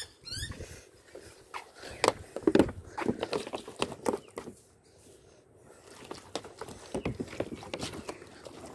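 Footsteps on a concrete footpath while walking, with scattered irregular clicks and knocks, quieter for a moment about halfway through.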